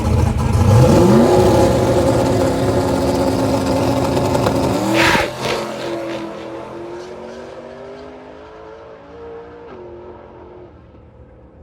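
Big-turbo small-block Ford V8 in a Foxbody Mustang on a drag pass. The engine revs up about a second in and runs loud and steady. A sharp burst comes about five seconds in, and then the engine note climbs in steps and fades as the car pulls away.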